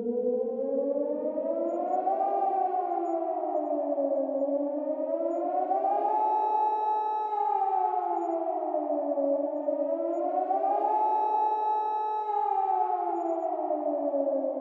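Nuclear-attack civil defence warning siren wailing, two pitches sounding together. The pitch rises and falls slowly, a full cycle about every four to five seconds, holding briefly at the top before falling again.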